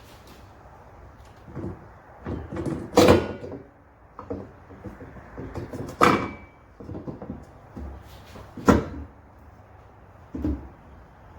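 Clunks and knocks of a strut tower brace being shifted and worked down onto the strut tower studs, which it does not slide onto smoothly. Three sharper knocks stand out, and one of them rings briefly.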